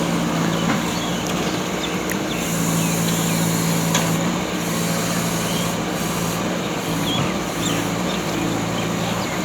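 JCB backhoe loader's diesel engine running steadily, with a few sharp clanks.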